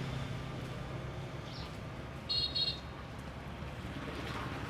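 A small engine running steadily with a low hum, and two quick high-pitched beeps a little past halfway.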